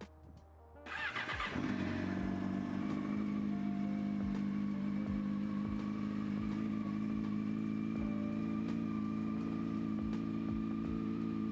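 A Yamaha YZF-R6's 600 cc inline-four engine is started about a second in, exhausting through a Scorpion aftermarket silencer, and settles into a steady idle.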